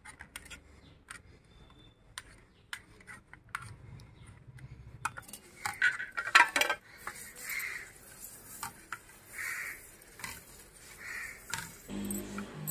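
A metal utensil clinking and scraping against a metal plate as the cooling sugar syrup is worked: scattered light clicks at first, a few louder clatters about halfway through, then soft scraping strokes about every two seconds.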